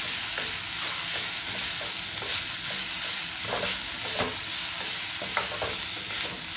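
Chopped vegetables sizzling in oil in a stainless steel kadai while being stirred with a wooden spatula. A steady frying hiss runs under scattered scrapes and light knocks of the spatula against the pan.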